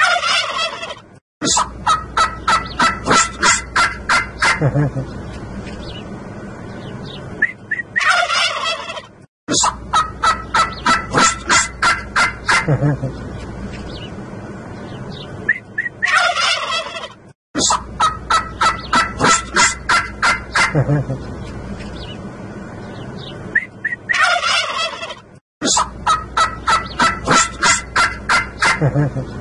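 Domestic turkey toms gobbling. Each round opens with a loud call and runs into a rapid rattling series of about a dozen pulses, and the round comes back four times, about every eight seconds.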